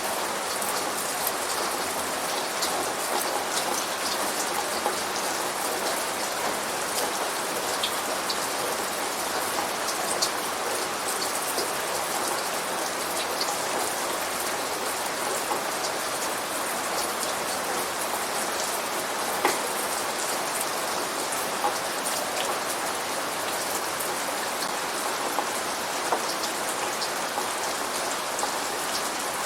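Steady rain: an even hiss with many separate drops ticking through it, unchanging throughout.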